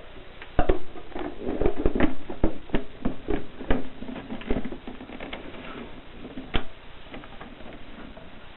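Olympia typewriter keys striking in a quick, irregular run of keystrokes for about four seconds, then one more strike about two seconds later.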